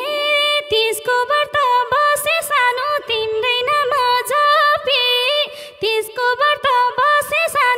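Instrumental interlude of Nepali lok dohori music: one lead melody instrument plays an ornamented tune full of pitch slides over quick madal hand-drum strokes.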